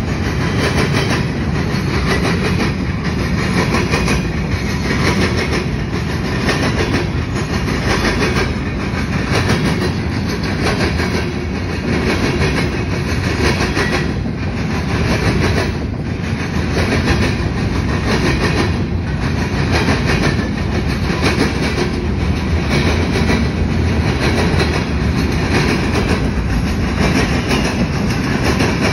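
Freight train of covered hoppers and boxcars rolling past on the near track, loud and steady, its steel wheels clacking over the rail joints about once a second.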